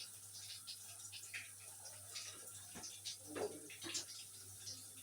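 Teeth being brushed at a sink: soft, irregular scrubbing and water splashes, without a steady stream.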